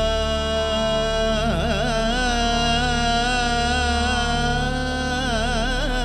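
Carnatic-style devotional music: a single melody line of long held notes over a steady low drone. It breaks into quick ornamented pitch slides about a second and a half in and again near the end.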